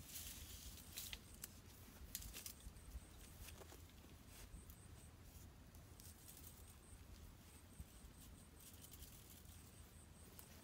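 Faint rustling and crackling of leafy twigs and dry branches being gripped, bent and broken, with a few sharp snaps in the first few seconds.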